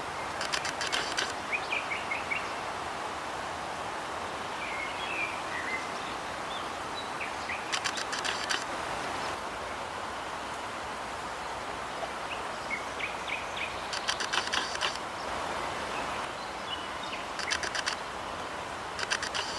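Birds calling outdoors: short high chirps and, every few seconds, a burst of rapid rattling clicks lasting about a second, over a steady background hiss.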